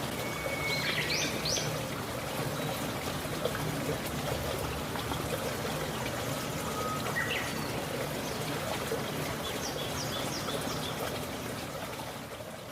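Steady rush of a waterfall, with a few short bird chirps about a second in, around seven seconds and again near ten seconds. The sound fades out at the very end.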